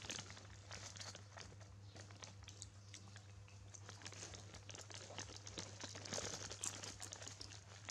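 Faint crackling and small clicks as a baby macaque handles and eats fruit pieces on a woven plastic mat, over a low steady hum.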